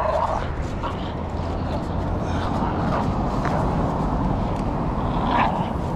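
Shorty bull tugging and hanging on a spring pole rope toy, with short growl-like sounds near the start and again about five seconds in, over a steady low rumble.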